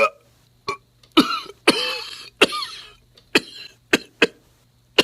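A man's coughing fit, put on while he is getting over bronchitis: about eight coughs at uneven gaps, a couple of them longer and voiced.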